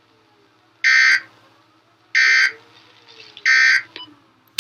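Three short bursts of Emergency Alert System SAME digital data tones, a two-tone warble about a third of a second long each, a little over a second apart: the End of Message code that closes the tornado warning broadcast.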